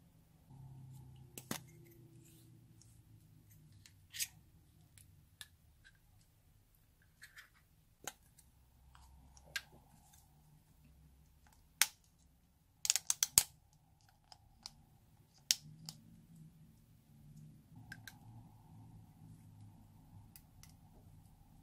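Lipstick tubes and a plastic scraping tool clicking and tapping as leftover lipstick is dug out of the tubes. Scattered sharp clicks, with a quick run of several about thirteen seconds in.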